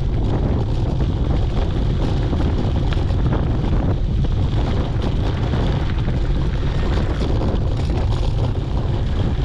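Wind buffeting a GoPro action camera's microphone on a moving mountain bike: a steady, loud rumble.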